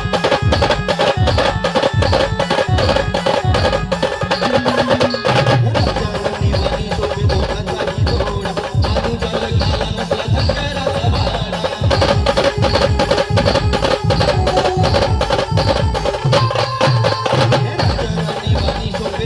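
A band playing live: drums beat a fast, steady rhythm under a loud held melody.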